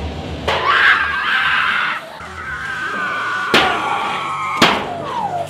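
A costumed zombie actor screaming: a loud outburst half a second in, then a long held scream. Sharp bangs cut in twice in the second half.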